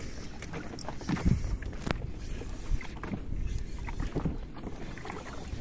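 Wind and water noise on a small open boat at sea: a low rumble with faint knocks, and one sharp click about two seconds in.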